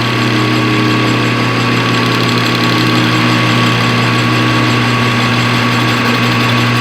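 Metal lathe running steadily: an even motor and gear hum with a constant high whine.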